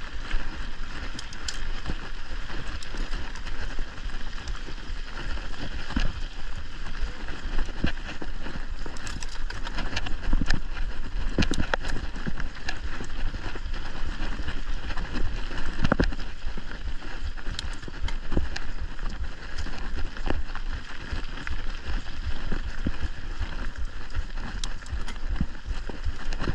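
Mountain bike riding over a dry, leaf-strewn dirt trail: a steady tyre rumble with frequent sharp rattles and knocks as the bike goes over bumps.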